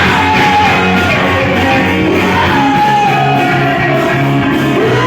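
Loud music with a sung, shouted vocal over sustained low notes.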